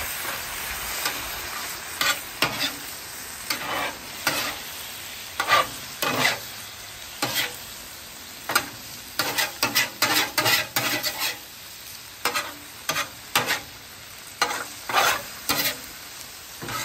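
Chicken sizzling in teriyaki sauce on a hot steel flat-top griddle, with a metal spatula scraping and clacking against the griddle surface over and over as the chicken is turned, the strokes coming fastest about nine to eleven seconds in.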